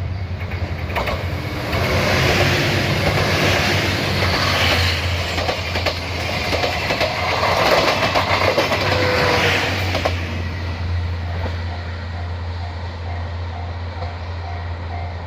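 A train passing close by over a level crossing, its wheels clicking over the rail joints; the noise swells and fades away about ten seconds in. The level crossing's warning bell then keeps ringing in a steady repeating beat over a low hum.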